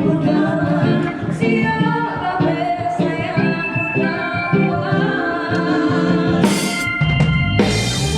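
A woman singing with a live band. The drum kit comes in near the end with two cymbal crashes and heavier kick drum and bass.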